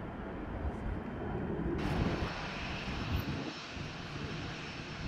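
Jet aircraft engine noise, a steady low-weighted roar of air and exhaust. About two seconds in, the sound switches abruptly to a brighter hiss.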